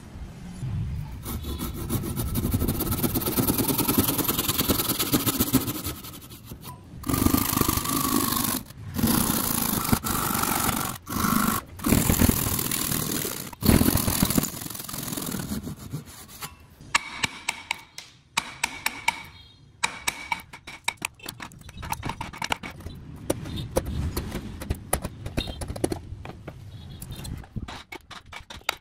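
Hand saw and chisel work on wood: a long stretch of sawing and rubbing, then separate strokes about a second long, then many rapid small clicks and taps.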